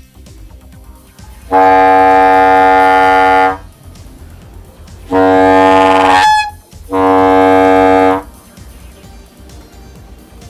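Homemade PVC diaphragm air horn fitted with a long inner tube, sounded in three loud blasts of a steady low horn tone. The second blast slides up into a squeal and breaks off at its end, a weird variation caused by loose parts in the horn.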